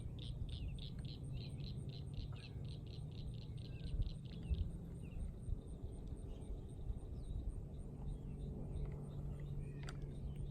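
A rapid run of high chirps, about five a second, from a small animal such as a bird or insect; it stops about four and a half seconds in, and a few scattered chirps follow. A steady low rumble lies underneath.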